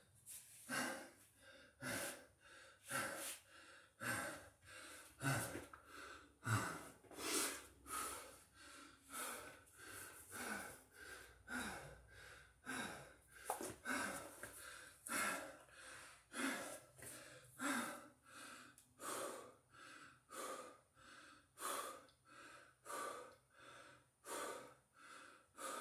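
A man panting hard, with loud in-and-out breaths at about one a second: he is winded from exertion.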